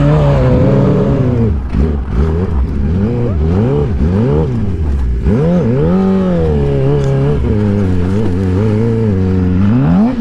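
Sportbike engines revving, the pitch rising and falling several times, then climbing steeply near the end as the bike accelerates.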